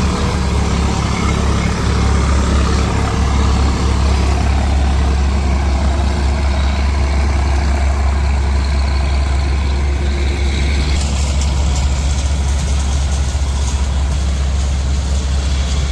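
Heavy diesel farm machinery running steadily with a deep engine hum. A brighter hiss with fine crackles joins about eleven seconds in.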